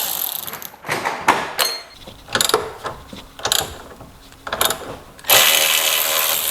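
Hand and power tools undoing suspension bolts: a series of short mechanical bursts, then a longer loud run of a power tool about five seconds in.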